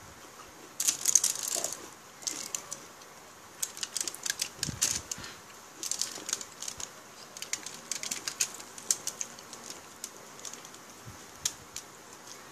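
Close-up eating sounds: irregular bursts of wet clicks and smacks from chewing and from eating grilled chicken and rice by hand, loudest about a second in.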